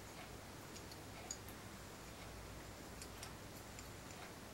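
Faint, scattered small metal clicks as the hammer and hand of an Uberti 1851 Colt Navy revolver are worked into the frame, the hand being pushed down into its slot. The clearest click comes about a second in.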